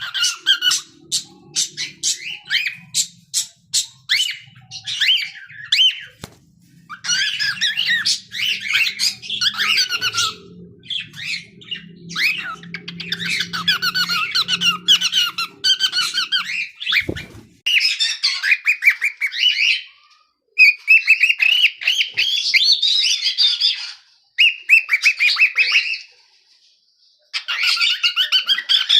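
Cockatiel singing: fast runs of short high chirps and warbled whistles in bursts, with brief breaks where it stops suddenly.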